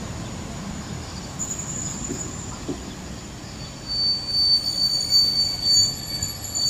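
Passenger train's wheels squealing on the station track: a thin, high, steady squeal that sets in about a second and a half in, is joined by a second squeal tone and grows louder from about four seconds in, over a low rumble of the rolling train.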